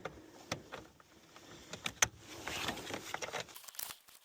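Pliers working a car battery terminal clamp: a few sharp metallic clicks, the loudest about two seconds in, followed by a second of scraping.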